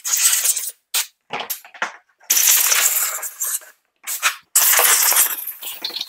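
Compressed-air blow gun blowing dust and cobwebs off a generator: a few short bursts of hiss, then longer blasts of about a second and a half each, with near-silent gaps between them.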